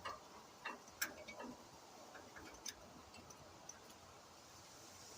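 A few faint, sharp clicks and taps, most in the first couple of seconds, over quiet background hiss.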